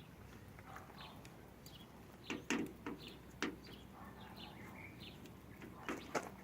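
A few light clicks and knocks of tools and tailgate hardware being handled, grouped about two to three and a half seconds in and again near the end, with faint bird chirps between them.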